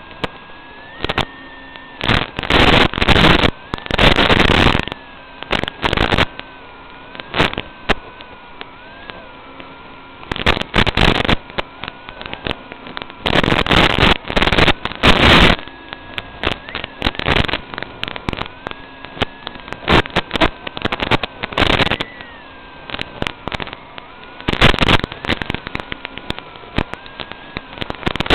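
Audio from an analog FPV video link recorded by goggle DVR: a steady hiss broken by frequent irregular bursts of loud static crackle, some brief and some lasting a second or two. Under it runs a faint whine that wavers in pitch.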